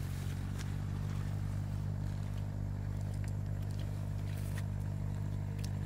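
A steady low hum, like a distant engine running, with a few faint rustles and clicks of hands working through wet grass.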